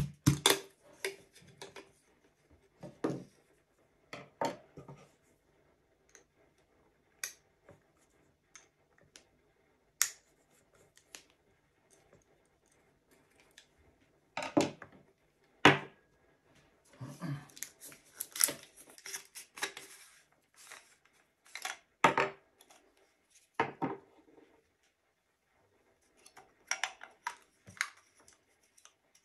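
Irregular clicks, knocks and light clatter of a 500 series telephone handset being taken apart by hand: plastic mouthpiece and earpiece caps unscrewed, and the metal transmitter and receiver capsules lifted out and set down on a wooden bench. The handling is sparse at first, with a quiet stretch, then busier in the second half.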